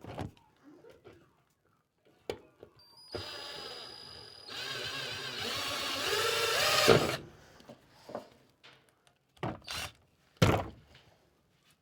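Power drill running for about four seconds, its pitch wavering as the speed changes, then several short knocks and clicks.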